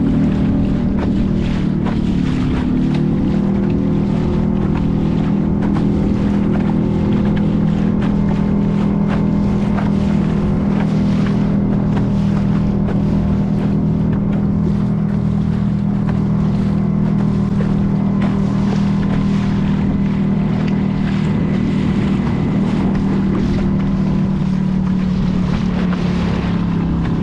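A motorboat's engine running steadily, a constant hum, with wind on the microphone and water rushing past the hull.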